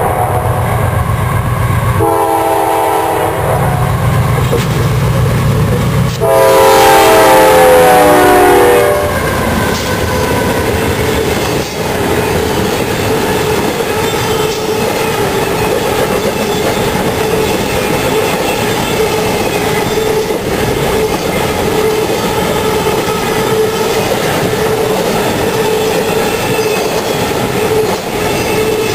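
A freight locomotive's multi-chime air horn sounds a short blast and then a long, loud blast about six seconds in that drops in pitch as the locomotive passes. A double-stack container train then rolls by close up: a steady rumble and clickety-clack of wheels over rail joints, with a steady whine under it.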